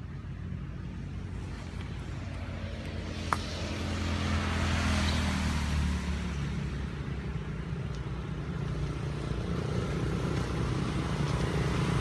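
A motor vehicle engine running, growing louder about four seconds in and again near the end, with a single sharp click a little over three seconds in.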